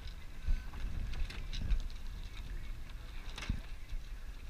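Wind buffeting the microphone and water noise aboard a boat on choppy water, a gusty low rumble with a few sharp knocks about half a second, 1.7 s and 3.5 s in.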